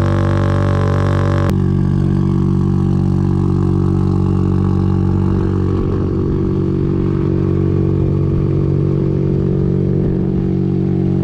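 Car engine idling steadily at a constant speed. Its tone changes abruptly about a second and a half in, becoming deeper and fuller.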